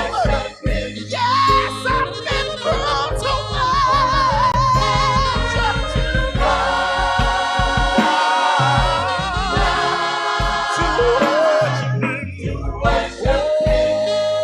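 Gospel music: voices singing wavering, vibrato-laden lines over a band with a steady beat and bass. A single note is held near the end.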